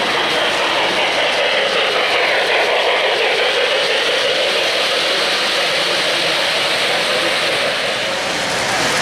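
O-gauge three-rail model trains running on the layout, a passenger train and a freight train rolling past, making a steady rumble of wheels on track and motors.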